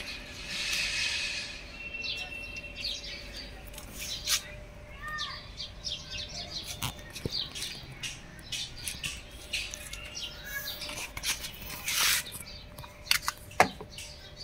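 Small birds chirping now and then, among scattered clicks and taps, with a quick falling whistle near the end.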